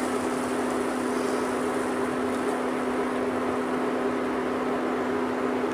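A steady mechanical hum with a low, even tone over a soft hiss, unchanging throughout.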